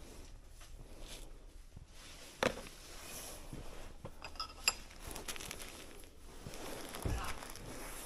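Glass jars on a store shelf clinking as a gloved hand handles them: a sharp knock about two and a half seconds in, then a brief ringing clink about two seconds later, amid light handling noise.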